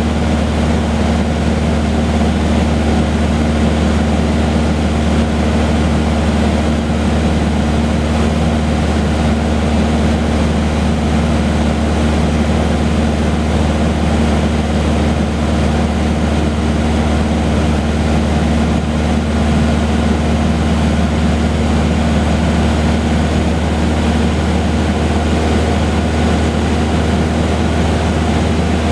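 Cessna 150H's four-cylinder Continental O-200 engine and propeller in cruise flight, heard inside the cabin as a loud, steady drone with a deep hum and a wash of airflow noise, unchanging throughout.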